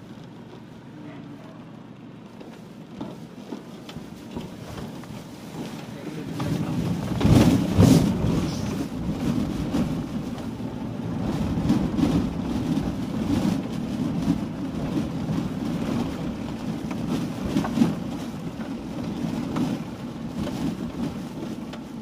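A vehicle engine running with wind buffeting the microphone, as heard while riding in the vehicle; it gets louder about six seconds in, with strong gusts just after.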